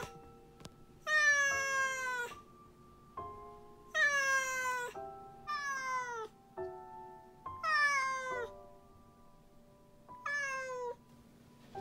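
Domestic cat meowing five times, each meow up to about a second long and dropping in pitch at the end, over quiet background music.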